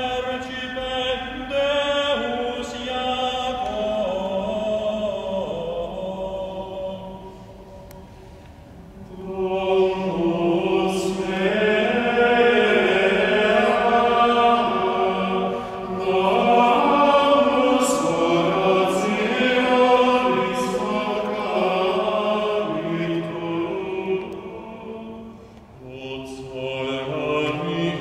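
A small ensemble of men's voices singing chant unaccompanied, with short breaks between phrases about eight seconds in and again near the end, in a reverberant cathedral.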